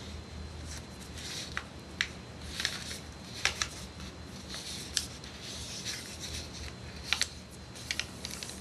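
A sheet of printing paper being handled and folded, with soft rustling and a series of short crisp snaps as creases are pressed in.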